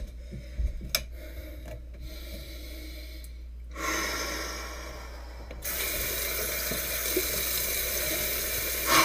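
Running water, as from a tap: a rush about four seconds in, then a steady hiss that starts suddenly about five and a half seconds in.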